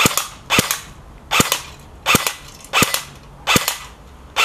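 Battery-powered airsoft AK-74 replica firing single shots: six sharp cracks at an even pace, about three-quarters of a second apart.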